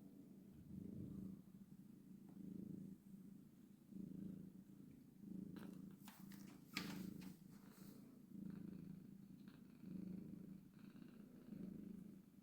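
Domestic cat purring close up, swelling with each breath about every second and a half. A few short rustles or clicks come midway, the sharpest about seven seconds in.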